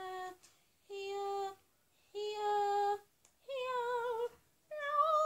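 A girl singing a slow run of held notes to herself, each about half a second to a second long, the last two higher and wavering.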